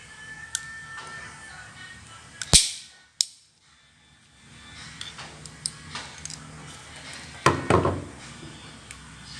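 Cutter snipping the untwisted wire ends of a UTP network cable to trim them even. There is a loud sharp snap about two and a half seconds in, a smaller one just after it, and a quick cluster of snips near the end, with small clicks of handling in between.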